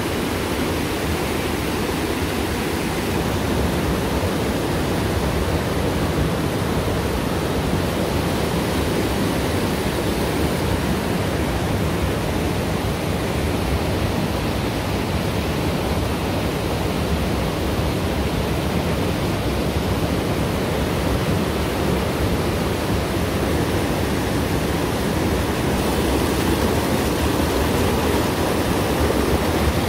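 Steady rush of water pouring over a water mill's wooden spillway and weir into a rocky stream, an even, unbroken noise.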